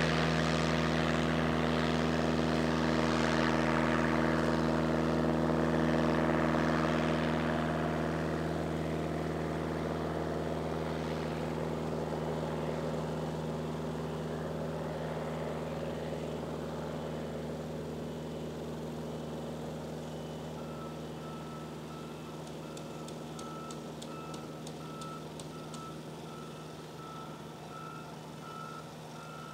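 Piper Cub floatplane's engine and propeller running at full takeoff power, a steady drone with water hissing off the floats, loudest in the first seven seconds and then fading steadily as the plane runs away across the water. A repeated high beep starts about two-thirds of the way through.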